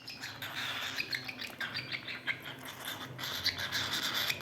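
Cockatiel making eager eating sounds: a rapid run of short chirps and squeaks mixed with quick clicks.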